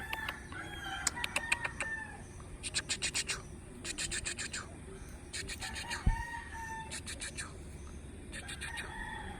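Chickens clucking in quick runs of sharp notes, with several longer drawn-out calls about a second each.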